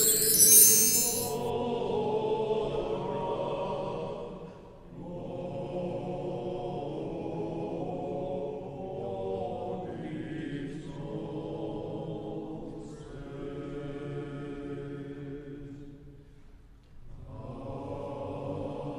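Voices chanting Catholic rosary prayers in Chinese, a continuous sung recitation in long phrases that break briefly about four and a half and sixteen and a half seconds in. A short bright hiss at the very start is the loudest moment.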